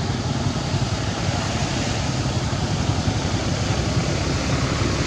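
Steady rumble and hiss of road traffic, with no distinct events.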